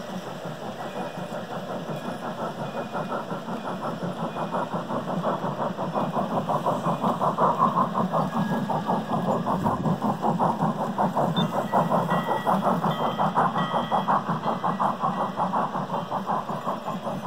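G-scale battery-powered model steam locomotive and its freight cars running past on the track, with a fast, even rhythmic beat that grows louder as the locomotive comes close, about eight seconds in.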